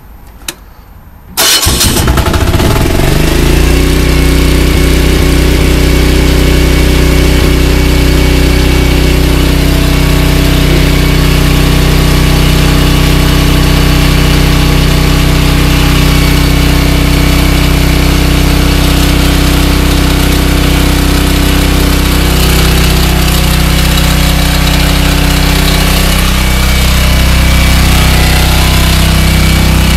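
Diesel generator started with the key about a second and a half in, catching at once after a short crank and then running steadily. It is the first start after the generator has sat unused for a while.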